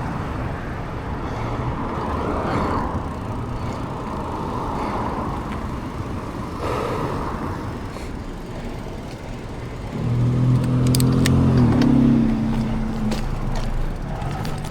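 Motor vehicle running with steady road noise; about ten seconds in, a low engine drone swells louder for about three seconds, then eases off.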